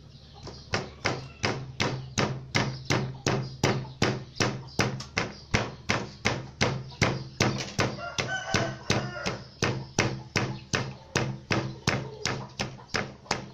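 Wooden pestle pounding red chilies and garlic in a wooden mortar: a steady rhythm of about three knocks a second, starting about half a second in.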